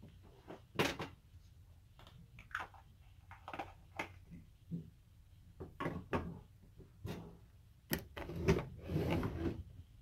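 Handling noise: irregular light knocks, taps and rustles of hands and hair near the microphone, with a longer rustle about eight and a half seconds in.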